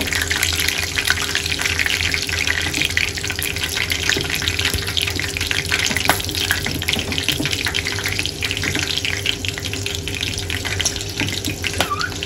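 Curry leaves and green chillies sizzling and crackling in hot oil in a pan, a dense, steady spatter of tiny pops.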